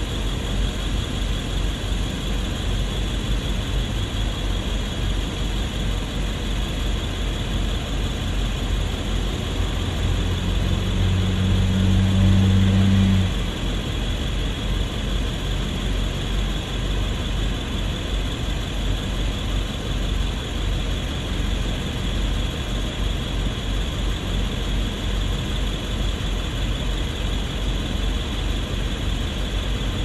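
Steady traffic and engine noise around a stopped car. A deeper engine hum swells about ten seconds in and cuts off suddenly about three seconds later.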